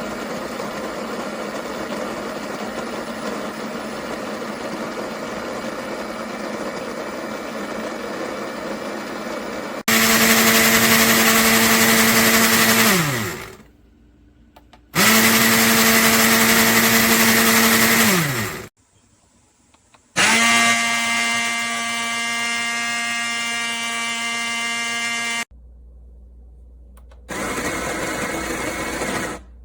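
Electric burr coffee grinder motor running in several separate bursts, a steady hum with a whine. Twice it falls in pitch as the motor spins down after being switched off.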